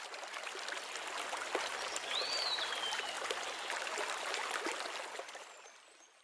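Flowing, trickling water: a steady hiss full of small splashy ticks. About two seconds in, one short whistled note rises and then slides down. The sound fades out near the end.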